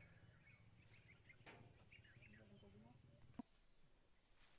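Faint countryside ambience: a steady high-pitched insect drone, like crickets, with a few faint bird chirps. About three and a half seconds in there is a short click, after which the insect drone is louder.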